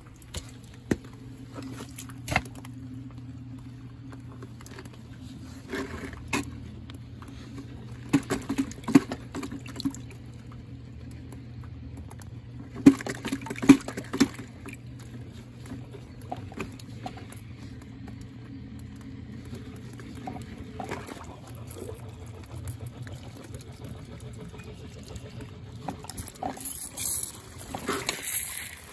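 Muddy stormwater pouring steadily from a yard drain pipe into a small pool, with splashes as a hand reaches into the water a few times, the loudest about halfway through and near the end.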